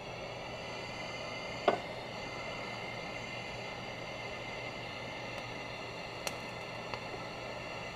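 Oxyacetylene torch burning with a steady hiss, its flame heating the cast-iron cylinder head around a seized exhaust manifold stud. A sharp click comes a little under two seconds in, and two faint ticks come near the end.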